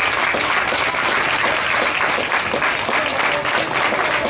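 Crowd applauding: many hands clapping steadily and evenly.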